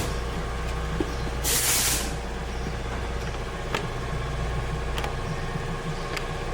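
Steady low mechanical running hum, with a short burst of hissing air about a second and a half in and a few faint clicks.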